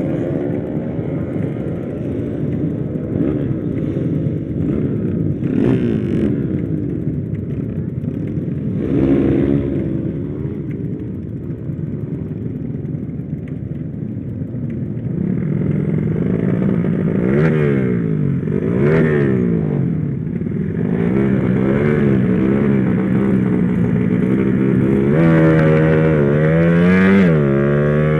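Motorcycle engine revving hard under riding load, its pitch climbing and dropping again and again through gear changes, most often in the second half.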